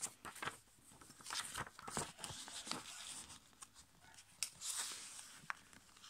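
Sheet of A5 copy paper being folded and creased by hand on a tabletop: irregular short paper crackles, with a few longer swishes as fingers press and run along the folds.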